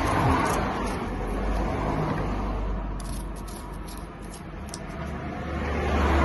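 Road traffic: passing motor vehicles, their noise swelling about the start and again near the end, with a low engine rumble.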